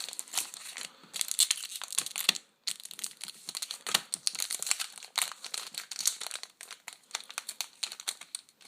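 Packaging of a Pokémon trading card pack crinkling in irregular crackles as it is worked open with one hand.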